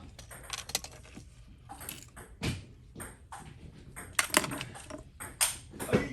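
Small metal repair tools and phone parts clicking and tapping against each other in irregular, sharp ticks, several close together around the middle.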